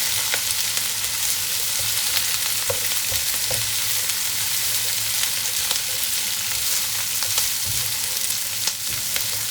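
Vegetables frying in plenty of cooking oil in a pan: a steady sizzling hiss full of small pops and crackles, with a few sharper ticks.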